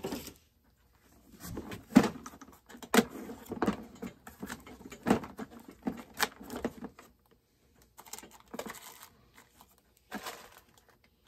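Rummaging through a plastic parts organizer: irregular clicks, knocks and rattles of small metal parts and plastic lids being handled.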